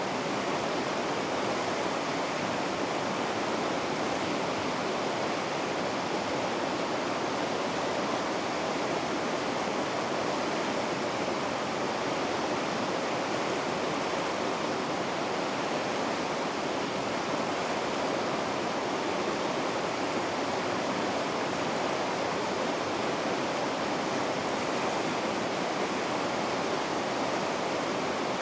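River rapids: white water rushing steadily over rocks, with an even, unchanging sound.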